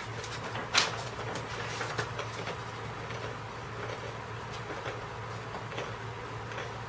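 A steady low hum, with light handling noises over it: a sharp rustle about a second in, then a few soft clicks and rustles.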